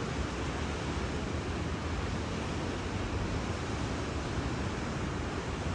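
Large Lake Michigan waves breaking on the beach: a loud, steady wash of surf with no separate crashes standing out.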